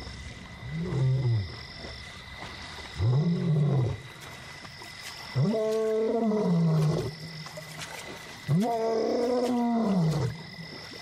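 Male lion roaring: four calls, each rising then falling in pitch, the first two short and the last two longer. It is a long-distance contact call to locate a companion.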